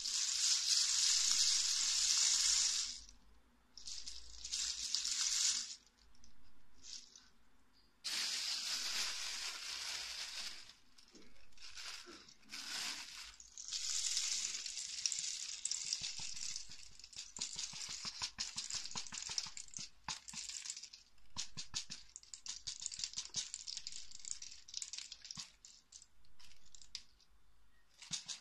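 Dozens of empty two-piece hard capsules rattling and sliding across an acrylic capsule-filling plate, shaken in several bursts to settle them into its holes. About halfway through the sound turns into a long run of quick clicks as the loose extras are tipped off the plate into a plastic bag.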